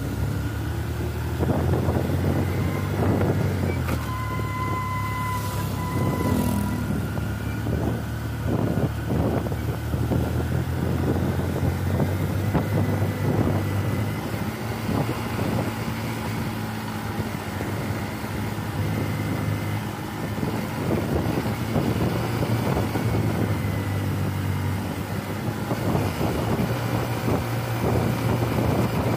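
Vehicle engine running steadily under way, with road and wind noise. A brief steady high tone sounds from about four to six and a half seconds in.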